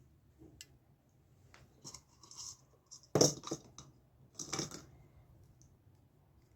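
Handling noise of small hard objects: a few light clicks and scrapes, then two louder clattering knocks with a scrape, about three seconds in and again about a second and a half later.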